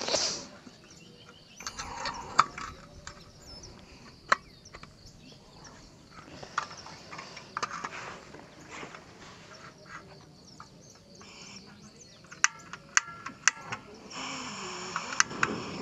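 Scattered clicks and knocks of a butane canister being fitted onto a small portable camping gas stove, then a quick run of sharp clicks. About fourteen seconds in, a steady hiss of gas starts. There is a short cough at the very start.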